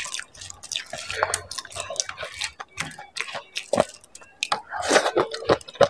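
Close-up eating of dahi puri: a run of wet clicks and squelches as a yogurt-covered puri is picked up with the fingers, then the crisp puri shell cracking and wet chewing as it goes into the mouth, loudest near the end.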